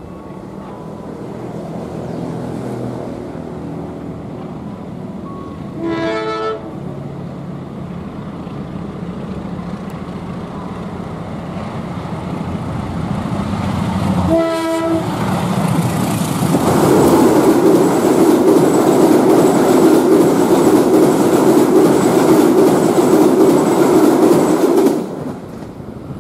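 Diesel locomotive hauling a passenger train through a station at speed without stopping: its engine grows louder as it approaches, and it sounds its horn in two short blasts, about six seconds in and again as it comes alongside. The coaches then rush past with a loud, steady rumble of wheels on rail, which cuts off suddenly near the end.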